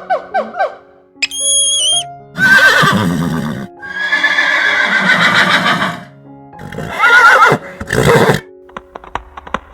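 A horse neighing and whinnying several times, the longest call lasting about two seconds, over background music with steady held notes.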